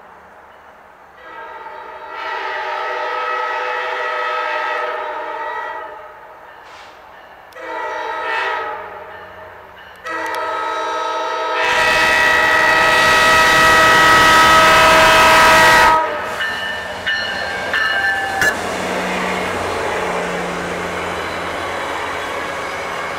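Locomotive air horn sounding a chord of several notes in a long blast, a short blast and a long blast. This ends the long-long-short-long grade-crossing signal, and the last blast is the loudest as the train draws level. The horn cuts off suddenly, and the train rolls past with a steady rush, a low rumble and scattered wheel clicks.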